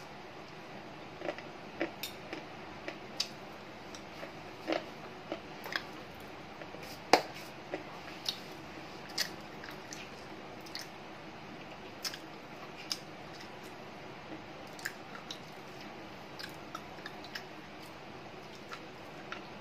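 Slate pencil being bitten and chewed: a series of sharp, irregular crunches, the loudest about seven seconds in.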